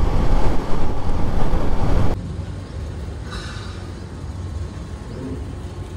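Motorcycle riding noise: wind rushing over the rider's microphone with a low engine rumble. About two seconds in it drops sharply to a quieter, steady low rumble.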